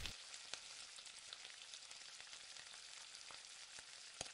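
Faint, steady sizzle of a thick paneer masala gravy simmering in a steel pan on a low-to-medium gas flame, flecked with many tiny pops. Near the end come a couple of sharper clicks as a spatula starts stirring.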